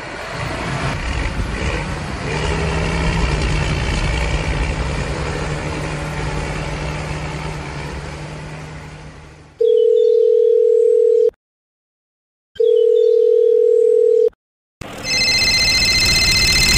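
Two loud, steady electronic beeps of about a second and a half each, separated by short silences, like a telephone tone. Before them a steady noisy drone with a faint hum fades out. Near the end a different sound with several high, steady tones begins.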